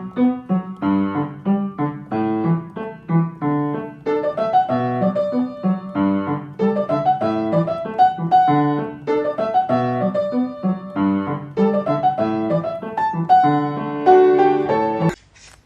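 Piano music, a run of quick notes over chords, stopping just before the end.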